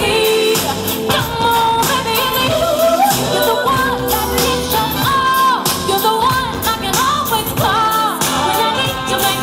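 A woman singing an R&B vocal line into a microphone, sliding up and down through runs and holding notes, over a backing track with a drum beat.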